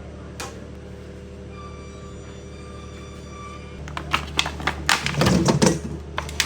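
Soft background music, then from about four seconds in a quick, irregular run of sharp knocks and clatters from kitchen work.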